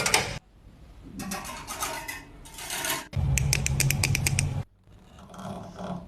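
Clicking and scraping in short groups, then a steady low hum with a run of quick clicks over it for about a second and a half midway, then fainter scraping.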